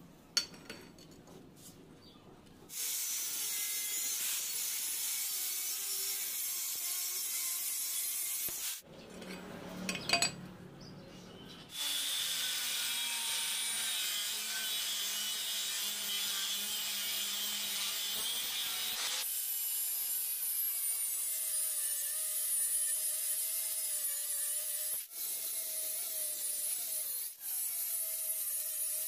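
Angle grinder with a thin abrasive cut-off disc cutting through steel angle iron clamped in a bench vise: a steady high hiss that starts about three seconds in and runs in several passes with short breaks between them.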